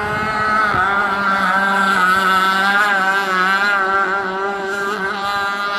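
Gas-powered radio-controlled boat's engine running steadily at speed, its pitch wavering slightly up and down.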